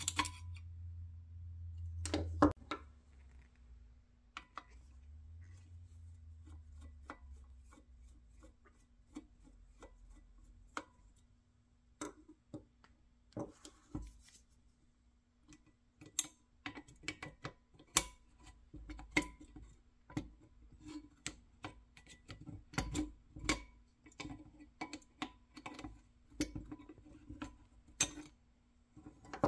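Irregular small metallic clicks and taps of needle-nose pliers and loose parts against a 1960s Duncan parking meter's mechanism as it is taken apart by hand, sparse at first and busier in the second half.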